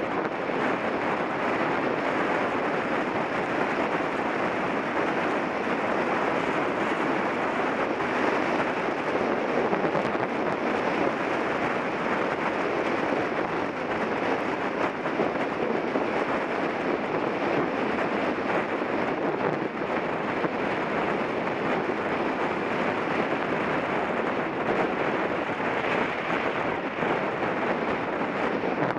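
Steady rushing noise of a mountain bike being ridden along the trail, with air rushing over the microphone and the tyres rolling on the ground, at an even level throughout.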